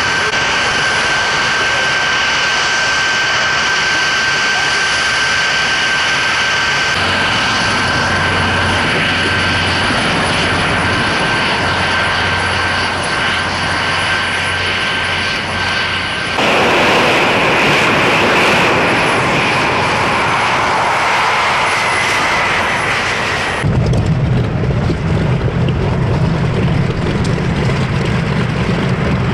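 Warbird engines running on an airshow ramp. A steady high whine sits over engine noise, then a whine slowly falls in pitch. Near the end the much stronger low rumble of a Grumman F7F Tigercat's twin radial engines idling takes over.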